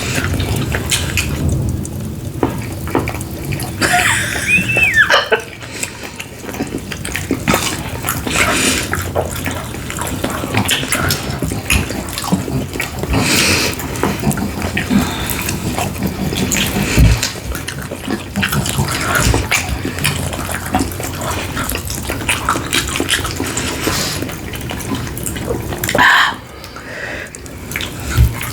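Close-miked eating sounds: steady wet chewing and mouth noises with many small clicks, and a brief squeak about four seconds in.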